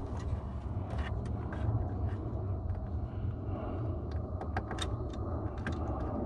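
A steady low rumble, with a scatter of small sharp clicks and taps from wire and connectors being handled.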